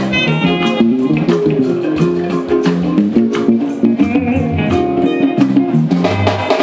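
Live band music led by guitars, with overlapping melodic lines over a steady beat and no singing.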